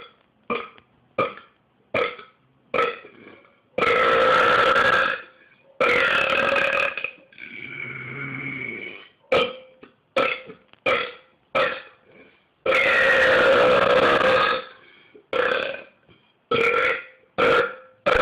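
A man belching over and over: runs of short burps about two a second, broken by three long drawn-out belches of a second or two each and one lower, quieter one.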